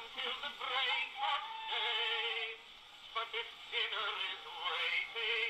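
Antique phonograph playing an early recording of a man singing, with a wavering vibrato on held notes. The sound is thin and lacks treble, typical of an early acoustic recording.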